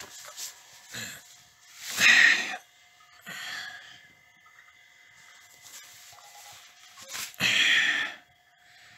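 A person's breathy groans: two loud ones about two seconds and seven and a half seconds in, with a fainter one between, over a faint steady hum.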